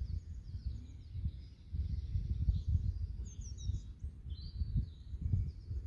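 Wind buffeting the microphone as an uneven low rumble, with small birds chirping faintly.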